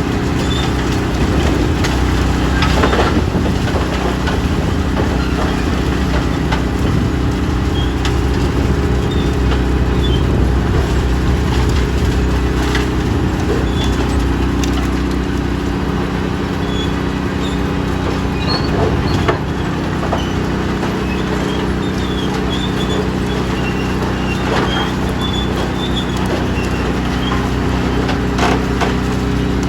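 A heavy diesel machine's engine running steadily at a constant speed, with intermittent short metallic squeaks and clanks from its moving parts.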